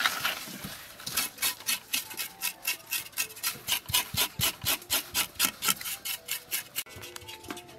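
A knife blade scraping the salted skin of a raw fish in a stainless steel bowl, in quick even strokes, about five a second. The scraping stops abruptly near the end.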